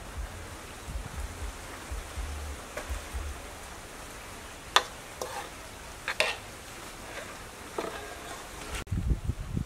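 Metal spoon clinking and scraping against an aluminium bowl as egg-and-pork filling is scooped out: a handful of sharp clinks in the second half, the loudest about five seconds in.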